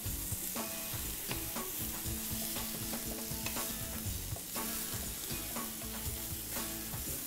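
Vegetables sizzling in a hot frying pan as they are stirred, with many small clicks and scrapes of the utensil against the pan.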